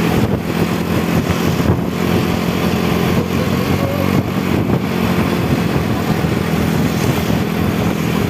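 A motor vehicle's engine running at a steady pitch, with road noise.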